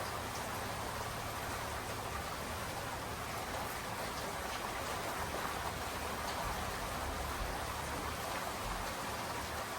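Steady rain falling, with a dense even hiss and faint scattered drops pattering on surfaces.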